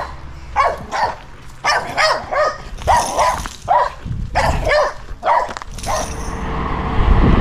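A dog barking in a run of short barks, then a car approaching on the road near the end, its noise rising.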